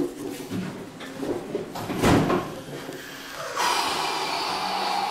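Workshop handling noises: light clatter of tools and parts, a sharp knock about two seconds in, then a steady hiss that starts suddenly and lasts about two seconds near the end.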